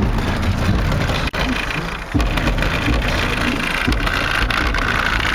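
Bass-heavy music played loud through a Soundstream Tarantula T4 15-inch subwoofer in a ported box tuned around 33 Hz. The deep bass is strong and steady, with a dense, distorted haze over it.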